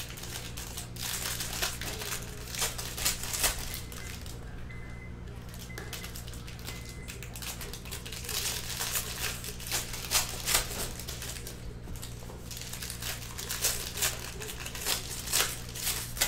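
Foil wrapper of a Bowman baseball card pack crinkling as it is handled and torn open, in irregular bursts, over a steady low hum.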